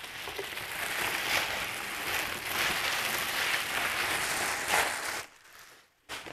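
Plastic packaging wrap crinkling and rustling loudly and unevenly as goalie pads are pulled out of it, dropping away about five seconds in.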